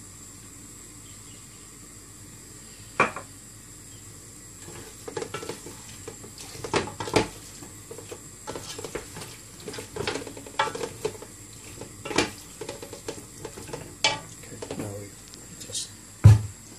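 Long wooden spoon stirring a thick mutton-and-yogurt mixture in a large aluminium stockpot, with irregular knocks and clicks as the spoon hits the pot's side. The heaviest knock comes just before the end.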